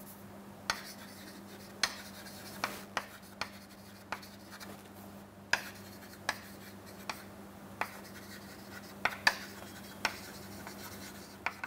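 Chalk writing on a chalkboard: faint scratching with irregular sharp taps as the chalk strikes the board, about one or two a second.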